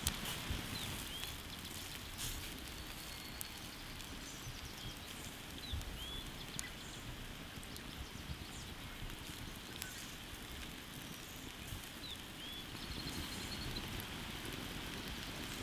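Outdoor ambience beside a wood fire under a spit-roasting pig: a steady hiss with a low rumble and a few faint crackles, and short bird chirps now and then, a cluster about a second in and again near the end.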